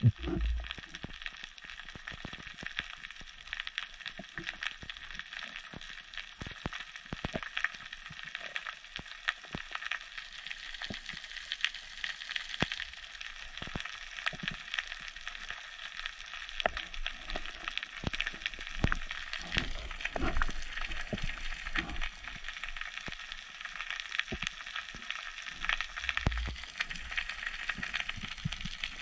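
Underwater crackling: a dense, steady fizz of tiny clicks, typical of snapping shrimp on a rocky reef, picked up through the camera's underwater housing. A few dull low thumps come through it, once just after the start and several times in the second half.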